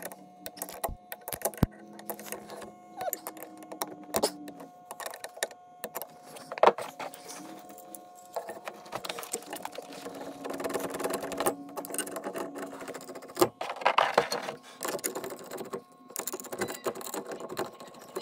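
Irregular metallic clicks, clinks and knocks from a wrench and a skid steer door's handle-and-latch assembly as the handle is bolted onto the glass door panel.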